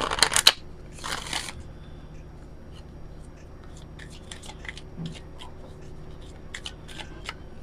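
Oracle cards being riffle-shuffled: a loud rapid flutter at the start and a second, shorter one about a second in. After that come light scattered clicks and snaps as the cards are spread and squared.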